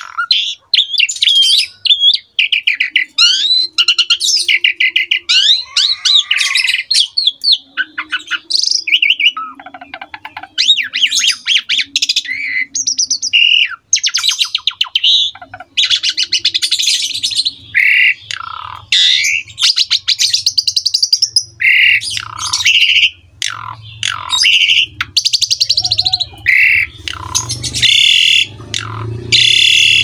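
Asian pied myna (jalak suren) singing in full voice: a long, varied song of sliding whistles, fast chattering rattles and harsh rasping notes, with only short pauses.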